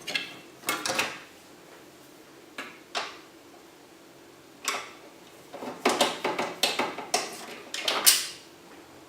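Irregular clicks, knocks and rattles of hardware being handled inside a desktop PC case as the graphics card's connectors are loosened and the card is worked free. A few isolated clicks come first, then a busy cluster from about five to eight seconds in.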